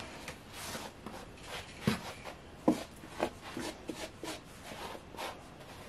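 Faint, irregular small clicks and rustles of hands handling a plastic tub of loose tropical substrate, with two slightly sharper taps about two and three seconds in.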